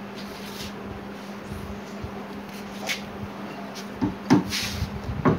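A metal hand tool scraping and knocking against the top frame of an old wooden cabinet: a few light taps, then a cluster of louder knocks near the end, over a steady low hum.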